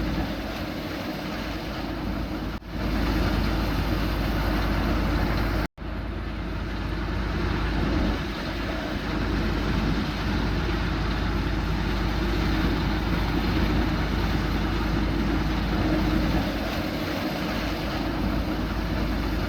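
Combine harvester running steadily, its engine and threshing machinery making a continuous loud mechanical noise with a low rumble, cut off abruptly for an instant twice.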